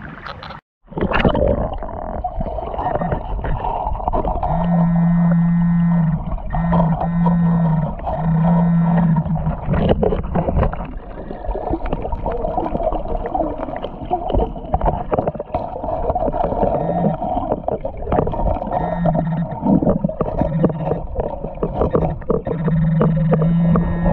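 Muffled creek noise heard through an underwater camera, with clicks and scrapes from hands in the gravel bed. A low buzzing metal-detector signal tone sounds in several short bursts, from about four to nine seconds in and again near the end.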